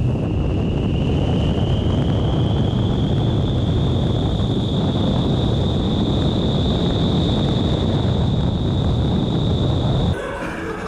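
Vertical wind tunnel's rushing airflow buffeting the microphone, with a high fan whine that rises slightly in pitch over the first few seconds and then holds steady. It cuts off abruptly about ten seconds in.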